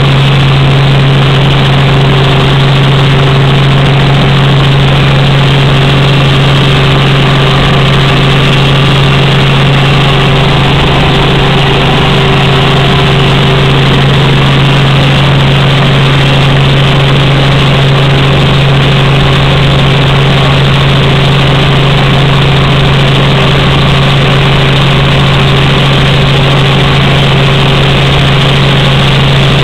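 Helicopter engine and rotors heard from inside the cabin in flight: a loud, steady drone with a constant low hum under a rushing noise.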